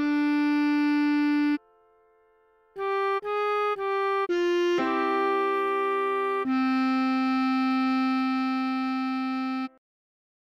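Bass clarinet playing a melody one note at a time. A held note is followed by a short pause, then four quick notes and two long held notes. The sound stops about a second before the end.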